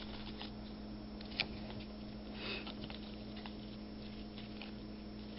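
Faint handling of trading cards over a steady low room hum: scattered soft ticks and rustles, with one sharper click about a second and a half in.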